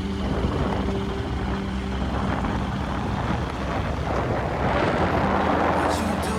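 Motor vehicle engine running steadily with road noise. A louder rush swells up about two-thirds of the way in, like traffic passing, and there are a couple of sharp ticks near the end.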